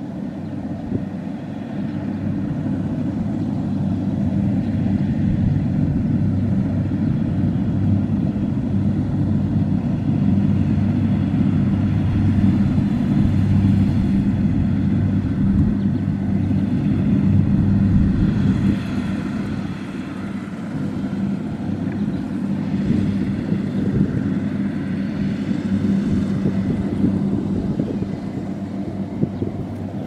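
Kubota DC70 combine harvesters running while harvesting rice: a steady, loud diesel drone that grows louder as they come near and eases off near the end.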